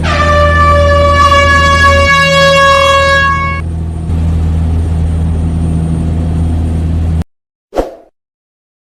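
Ship's horn sounding one long blast of about three and a half seconds, a steady single note, over a continuous low engine drone; a long blast is the signal that the ship is ready to sail. The drone cuts off suddenly, and a brief knock follows near the end.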